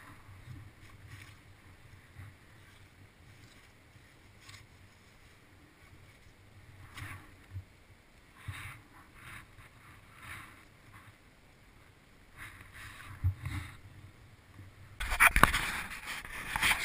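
Dry leaves and spiny chestnut husks rustling and scraping in short, scattered bursts as a gloved hand gathers chestnuts from the ground. About fifteen seconds in comes a louder spell of knocks and rubbing, the camera being handled and turned.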